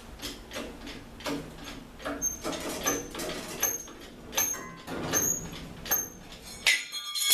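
Irregular knocks and clatter, about one or two a second, with short high squeaks between them, then a louder ringing squeal near the end.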